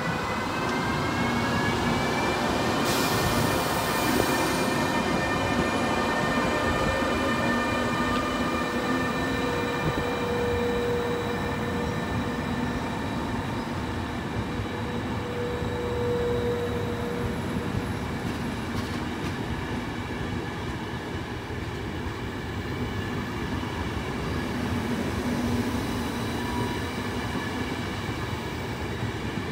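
E402B electric locomotive hauling a passenger train past and away: a whine of several tones rises in pitch over the first two seconds and then holds steady, with a brief hiss about three seconds in. After that the coaches roll past in a steady rumble on the track.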